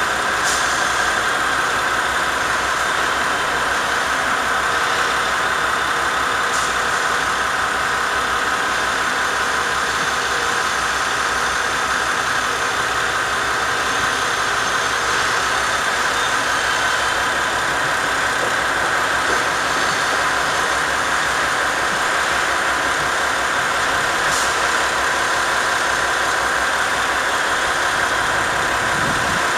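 JR West KiHa 40-series diesel railcar idling at a standstill, its engine running with a steady, unchanging drone.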